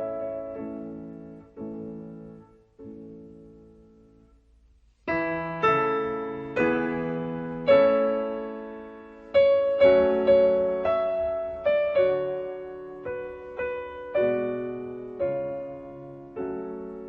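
Solo piano background music: slow notes each dying away, a brief near-pause about four seconds in, then a louder, busier passage.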